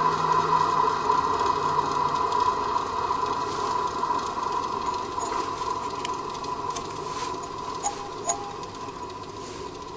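GMF 8-inch heavy-duty bench grinder from the 1950s coasting down after being switched off, its bearing noise a steady hum that slowly fades. The bearings don't sound too healthy but must still be good, since it keeps rolling for ages. Two small ticks come close together near the end.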